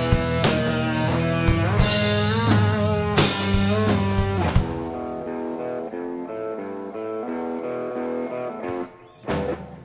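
Live heavy surf-rock three-piece with distorted electric guitar, bass guitar and drum kit, with cymbal crashes about every second and a half. About halfway through the drums and bass drop out and the electric guitar carries on alone with picked notes, dipping briefly near the end before a hit brings it back.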